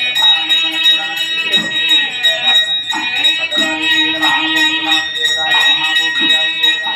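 A Hindu priest chanting prayers in long held phrases over a continuously rung hand bell, its rapid even strikes keeping up a steady ringing.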